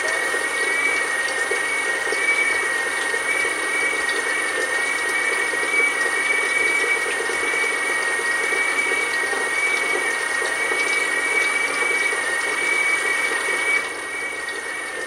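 Electric-motor-driven Vivolo gear oil pump running steadily with a high, even whine over a churning hum, turning over the programmed after-shutdown cycle that circulates oil at low pressure. It drops slightly in level near the end.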